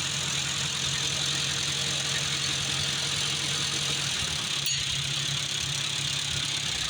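1949 Farmall Cub's four-cylinder flathead engine running steadily, run for a minute after an oil change so the new oil filter fills.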